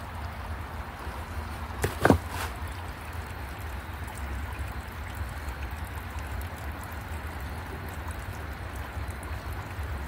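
Small forest stream trickling gently over stones, a steady low water sound. A couple of sharp clicks stand out about two seconds in.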